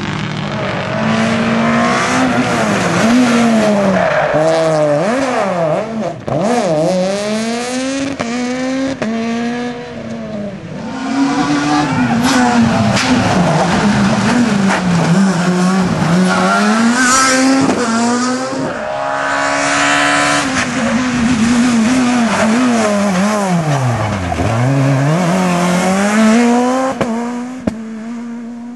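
Super 2000 rally cars' naturally aspirated 2.0-litre four-cylinder engines at full throttle as several cars pass in turn. The engine note climbs and drops again and again through gear changes and lifts, with one deep drop and hard climb near the end.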